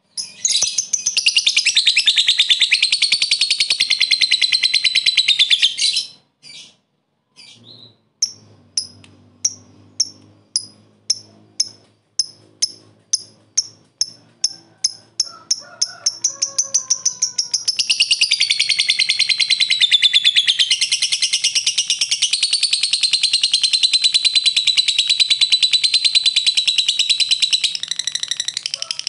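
Lovebird giving its long, rapid chattering trill (ngekek) for about six seconds. After a short pause it makes a run of sharp single ticks (ngetik), a few a second, which speed up and run into a second long trill of about ten seconds.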